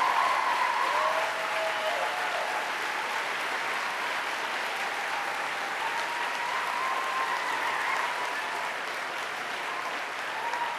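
A large audience applauding steadily, with some cheering and whooping mixed in.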